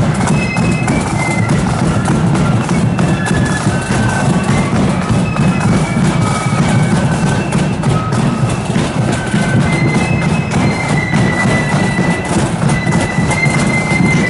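A marching band playing a melody over continuous drumming.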